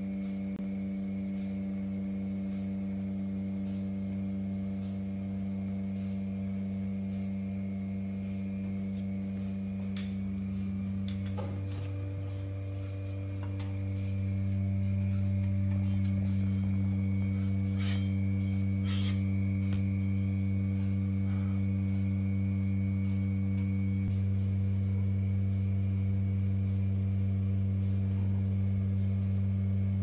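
A steady low electrical hum with several overtones, growing louder about a quarter of the way in, with a few faint clicks about two-thirds of the way through.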